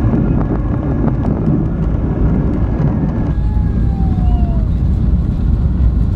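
Boeing 737 MAX 8 cabin noise: a loud, steady low rumble, with a short falling whine about three seconds in.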